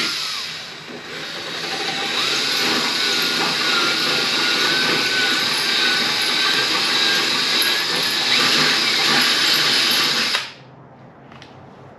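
Power drill running with its bit working into the car's sheet metal, widening a hole that was too small for the bumper quick-release hardware; a thin whine wavers over the motor noise. It runs for about ten seconds and stops abruptly.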